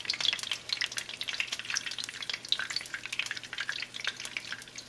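A whole jalapeño searing in hot oil in a frying pan: a steady sizzle full of many small crackling pops.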